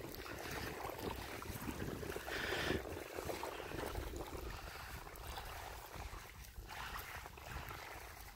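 Small waves lapping at a lake shore, with a low rumble of wind on the microphone.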